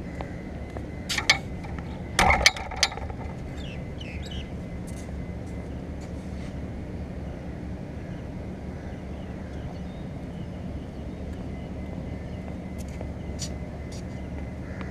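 Steady outdoor hum, broken about one to three seconds in by a few loud knocks and a rattle as the action camera is handled and set down in a new spot. Near the end come a few light, sharp taps.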